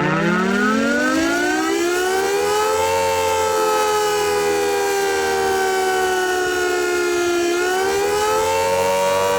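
Air raid siren winding up, its chord of several tones rising in pitch over the first few seconds, sagging slightly, then climbing again near the end.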